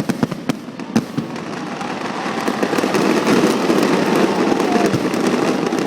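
Fireworks going off: a few sharp bangs, then a dense stretch of rapid crackling that builds up about two seconds in and stays loud.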